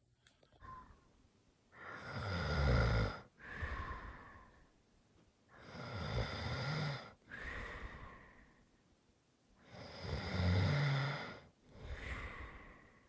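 A person snoring: three snores about four seconds apart, each a long, loud snore followed by a shorter, quieter breath.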